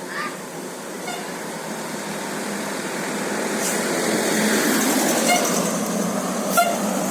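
A large road vehicle, most likely a bus, approaching: its engine and road noise grow steadily louder over a few seconds and then hold with a low steady hum once it is close. Short high calls or whistles cut in briefly a few times.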